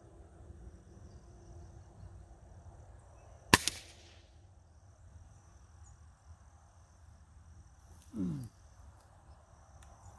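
A single shot from a Gamo Wildcat Whisperer .177 break-barrel air rifle, one sharp crack about a third of the way in. Near the end a short creak that falls in pitch as the barrel is broken open to cock the rifle for the next shot.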